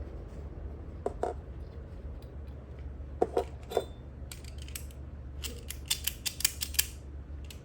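Metal pipe clamp being handled and worked by hand: scattered small metallic clicks and rattles, with a quick run of clicks in the second half.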